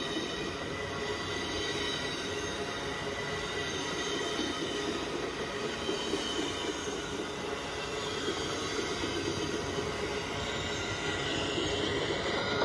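LEGO passenger train running on plastic LEGO track at close range: the steady running sound of its wheels and motor, growing a little louder near the end as the cars pass.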